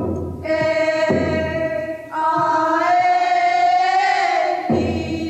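A voice chanting long held notes, rising in pitch about two seconds in, over a few slow, heavy drum beats.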